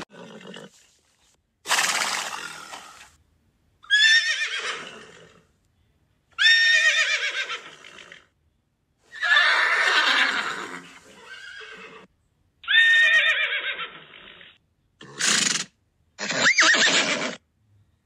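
Horses neighing: a series of about seven whinnies, each a second or two long, with short silent gaps between them.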